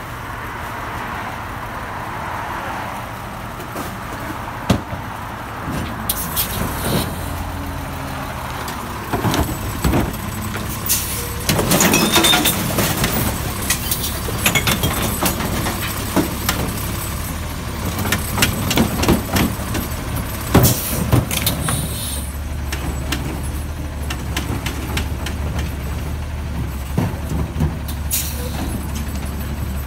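Recycling truck's engine running and its hydraulic tipper arm lifting and emptying a wheeled curbside cart into the hopper, with a burst of clattering and banging as the load drops in about 11 seconds in and more knocks later. The engine speeds up for the hydraulics twice, holding a steady low drone near the end.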